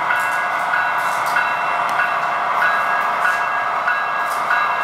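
HO-scale model diesel locomotive running along the layout track toward the camera, pulling cars: a steady running sound with faint scattered clicks.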